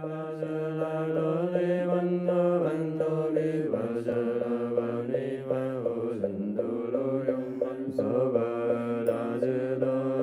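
Buddhist monastics chanting a liturgy together in long, held, sung notes that step from pitch to pitch, with a few sharp strikes now and then.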